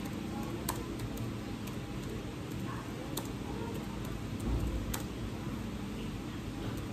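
Steady low background hum with a few faint clicks, and a short dull thump about four and a half seconds in.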